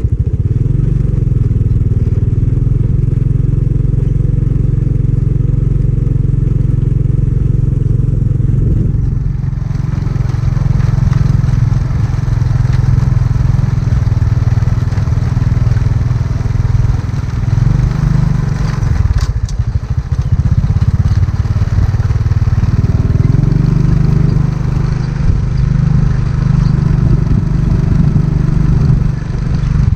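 Small motorbike engine running steadily while riding on a dirt road, with wind and road noise on the microphone. The engine note drops away briefly a little past halfway, then picks up again.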